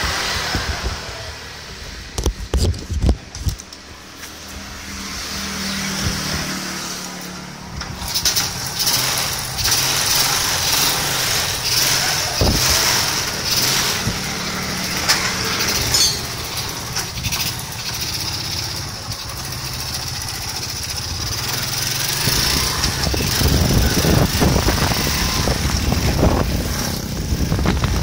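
Honda Prima motorcycle's small four-stroke single-cylinder engine running with Fanta in its crankcase in place of engine oil, which the owner says makes it sound rougher than usual. A few knocks in the first seconds, then the bike rides off, the engine growing louder near the end.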